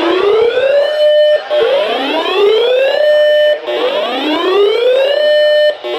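Electronic siren-style alert tone: a whoop that rises in pitch over about a second and a half, holds briefly and cuts off, repeated three times, with a fourth starting near the end.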